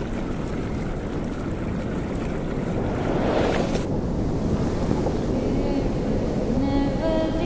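Water rushing over rocks, a steady noisy wash that swells and then cuts off abruptly about four seconds in, leaving a low windy rumble. Long held musical notes come in near the end.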